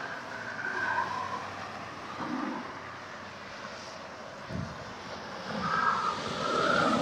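Road traffic passing, a steady rush of vehicles that swells louder toward the end as one passes closer. A short low thump about two-thirds of the way through.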